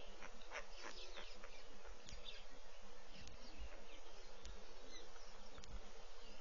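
Bush ambience: a steady insect hiss with a few faint bird chirps and occasional soft clicks.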